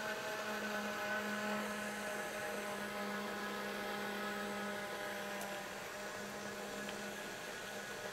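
Countertop blender motor running steadily, blending a thick filling; its hum eases slightly lower in pitch near the start and then holds steady.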